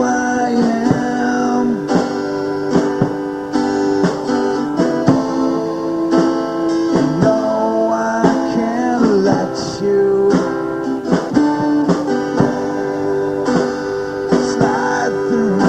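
Live band music led by guitar: strummed chords with a guitar lead playing bending, sliding notes between sung lines.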